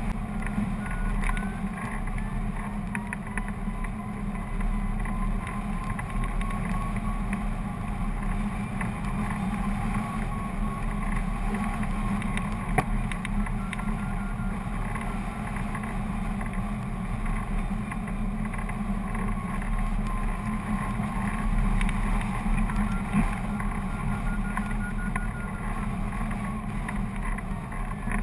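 Airflow rushing over the microphone of a camera mounted on a hang glider in flight: a steady low buffeting rumble, with faint wavering high tones now and then.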